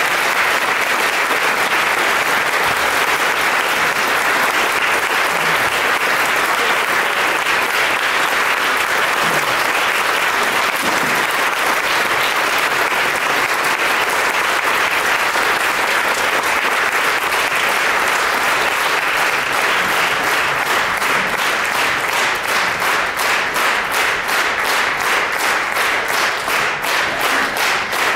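Audience applauding at length after the music ends. In the last several seconds the clapping falls into a steady rhythm in unison, about two to three claps a second.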